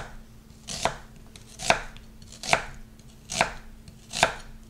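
Kitchen knife slicing a halved onion on a wooden cutting board: a crisp cut ending in a knock of the blade on the wood, about six strokes at an even pace of a little more than one a second.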